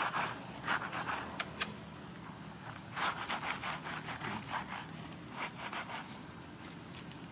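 Baby macaque scrambling over stone steps: several short, scratchy bursts of noise in clusters, with a couple of sharp clicks about a second and a half in.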